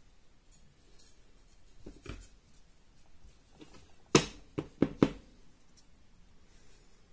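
Wooden boards and strips knocking against each other and on a work surface as they are handled: a light knock about two seconds in, then four sharp knocks in quick succession about four seconds in.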